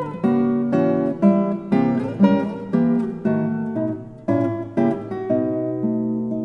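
Background music: an acoustic guitar picking a steady run of plucked notes and chords, about two a second.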